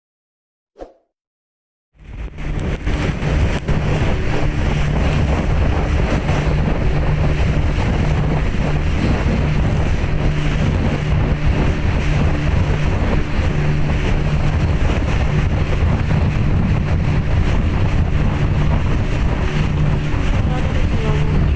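Boat engine running steadily under way, with wind buffeting the microphone and rushing water. It sets in suddenly about two seconds in, after a short silence broken by one click.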